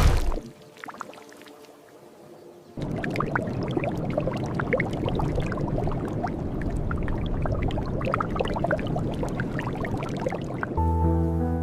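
Water pouring and splashing, a steady rush full of small drips, starting about three seconds in after a sudden thud and a short lull. Music with held notes comes in near the end.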